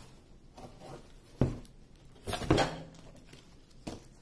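Knocks and rustling as packaged diamond painting kits are handled in a storage container: a sharp knock a little over a second in, a louder clatter around the middle, and a lighter knock near the end.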